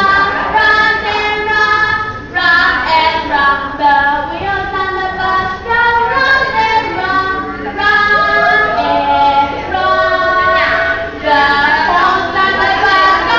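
A woman and a group of young children singing a song together, held notes moving up and down in a simple tune.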